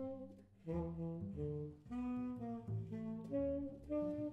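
Tenor saxophone and double bass playing jazz as a duet: the tenor plays short phrases of held notes with brief breaks between them, over the plucked upright bass.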